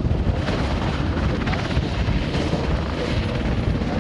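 NH90 military transport helicopter running on the ground with its rotors turning: a steady, loud rotor beat with a thin high whine above it.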